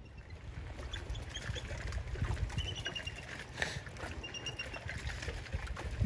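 Water lapping and splashing gently, with a low steady rumble under it. A small bird gives a short chirping trill twice, about two and a half seconds in and again near four and a half seconds.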